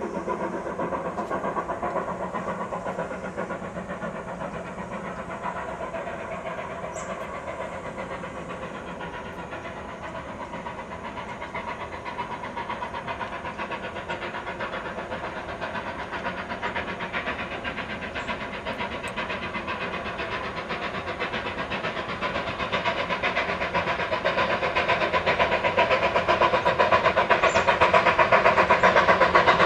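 Steam locomotive working hard, its exhaust beating in a quick, steady rhythm, growing louder over the last several seconds as it draws near.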